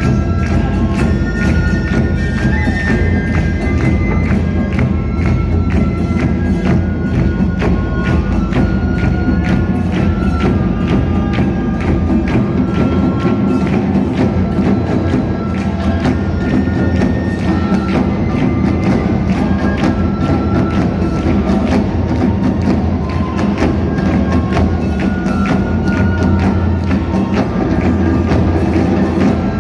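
Japanese taiko drum ensemble playing a dense, driving rhythm on carried barrel drums, stand-mounted drums and a large ōdaiko. Bamboo transverse flutes play a stepping melody over the drums.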